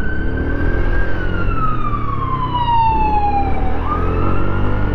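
Emergency vehicle siren wailing: a high tone that slides slowly down in pitch for a couple of seconds, then sweeps back up near the end. Under it runs the steady low rumble of the scooter and the traffic around it.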